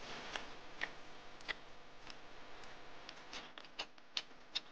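Faint, irregular clicks and smacks of someone chewing grilled fish.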